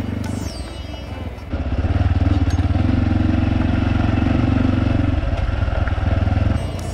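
250 cc trail motorcycle engine running steadily under way on a dirt road, heard from the bike, getting louder about a second and a half in.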